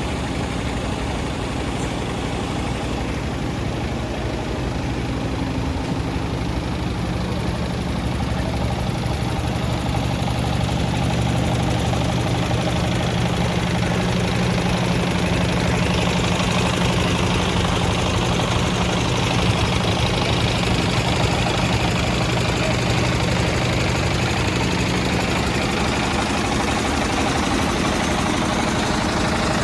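Isuzu 100P light truck's engine idling steadily with a rapid, even knock. It grows a little louder about eleven seconds in, and a hiss rises over it from about sixteen seconds on.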